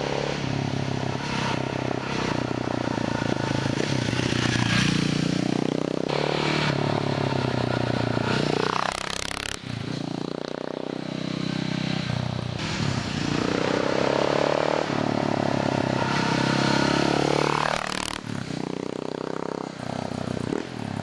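KTM LC4 640 single-cylinder engine running and revved up and down several times, with a clattering, scraping noise over the engine sound. The uploader identifies the noise as a defective starter freewheel (one-way starter clutch).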